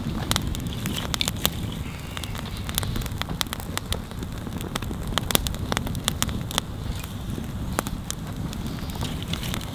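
Open wood campfire crackling, with frequent sharp irregular pops over a steady low rumble.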